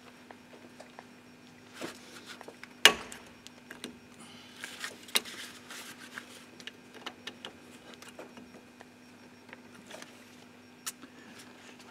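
A hand tool clinking and scraping against the Torx retaining screw of a brake disc as it is fitted and worked on the screw head, with scattered metallic clicks and one sharp knock about three seconds in. The screw head is a bit worn.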